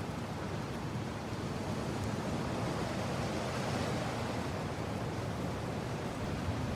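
Strong mountain wind blowing steadily: a continuous rushing noise with a heavy low rumble underneath.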